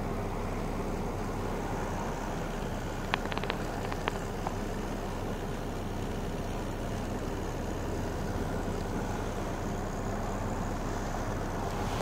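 Volkswagen Golf 1.4 TSI turbocharged four-cylinder petrol engine idling steadily, heard from under the car near the exhaust. A few light clicks come about three to four seconds in.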